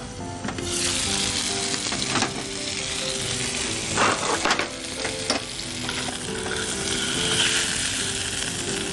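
Marinated fish steaks sizzling in oil in a non-stick pan, nearly cooked. The sizzle swells about half a second in as the lid comes off, with a few short knocks of utensils against the pan.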